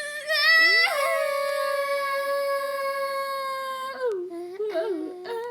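A high-pitched voice rises into one long, steady howl-like note held for about three seconds, then breaks off into lower, wavering vocal sounds near the end.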